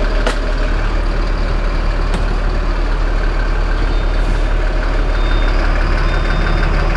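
Mercedes-Benz city bus's four-cylinder diesel engine running steadily, heard from the driver's cab. Two clicks come in the first couple of seconds, and a faint high beep repeats about once a second from about four seconds in.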